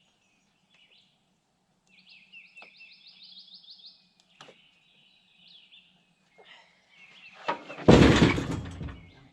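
Birds chirping, with a quick run of repeated chirps early on. Near the end comes a loud, sudden thud with a rattle that fades over about a second.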